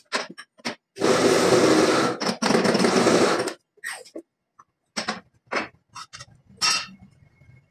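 Hydraulic press running loudly for about two and a half seconds, with one brief break, as its ram comes down onto a stack of steel blocks. Short metallic clanks and scrapes of steel pieces being handled on the press come before and after it.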